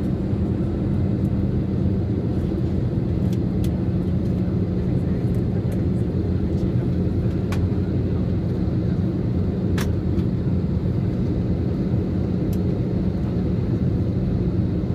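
Steady cabin drone of an Airbus A320-214 on descent: its CFM56 engines and rushing airflow heard from a window seat over the wing, with a low steady hum. A few faint clicks.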